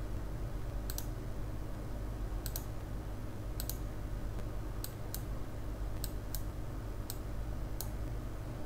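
Computer mouse clicking: about nine short, sharp clicks at irregular intervals, over a steady low hum.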